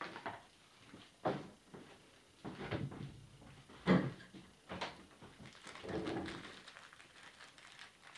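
Handling noise: a series of irregular knocks and clatters as small objects are picked up and moved, the loudest knock about four seconds in.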